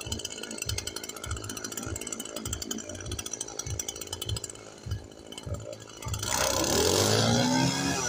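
Petrol brushcutter engine idling, then revved up about six seconds in: the pitch climbs and holds, and it is loudest there, before easing back down near the end.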